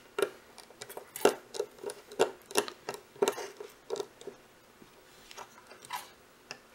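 Precision screwdriver turning out the tiny screws of a Seagate Microdrive's circuit board: a run of small, irregular clicks and ticks, about two a second.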